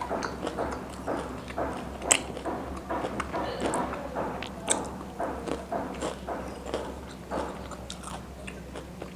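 Close-miked eating of crispy KFC fried chicken: repeated biting and chewing, the breading crunching and crackling, with the sharpest crunches about two seconds in and again near five seconds.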